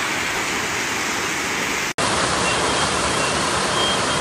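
Heavy rain pouring down onto a flooded street, a steady hiss of water. It breaks off about two seconds in and goes on in a second recording, where a few faint short high beeps sound.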